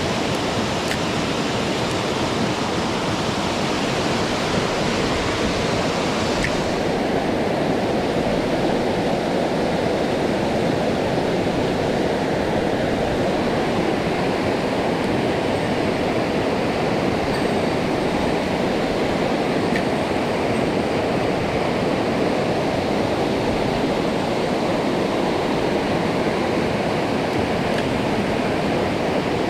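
Mountain stream rushing over rocks: a steady, dense roar of running water. Its upper hiss drops a little about six and a half seconds in.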